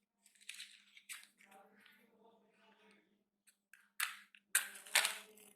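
Pocket lighter being struck to put a flame to headphone wires and burn off their insulation: scratchy strikes of the flint wheel, two early on and the loudest about four and five seconds in.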